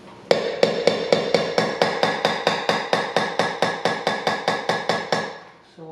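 Stainless steel shaft of an immersion blender tapped over and over against the rim of a stainless steel mixing bowl, knocking off clinging butternut squash purée. Even metallic clinks about four a second, each ringing briefly, growing softer and stopping shortly before the end.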